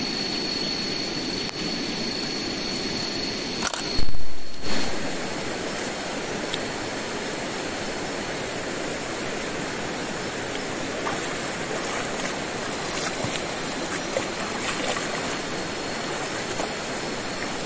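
Shallow river water flowing steadily, an even rushing. A steady high tone runs until a brief low thump about four seconds in, after which only the water continues.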